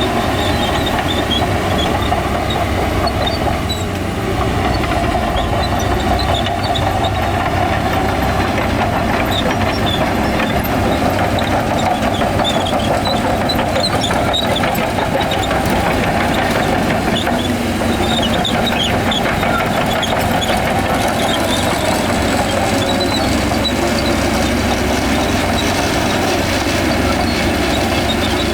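Shantui crawler bulldozer at work: a steady diesel engine sound mixed with the continuous clanking and squealing of its steel tracks.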